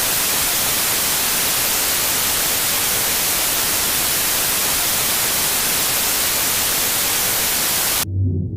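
Steady, loud hiss of static, even and unbroken, cutting off abruptly near the end; a deep low tone starts right as it stops.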